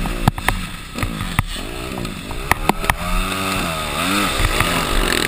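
Motocross bike engine heard from the rider's helmet camera, revving up and easing off repeatedly through the turns, with one clear rise and fall in revs about four seconds in. Several sharp knocks sound in the first three seconds.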